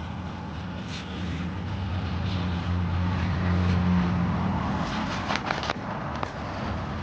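Car engine and road noise from inside a moving car: a steady low hum that rises a little midway, with a few sharp clicks about five seconds in.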